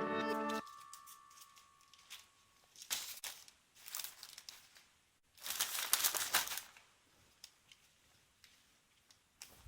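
Crinkling rustles of handled packaging, in short bursts about three and four seconds in and a longer one from about five and a half to nearly seven seconds, with faint clicks between.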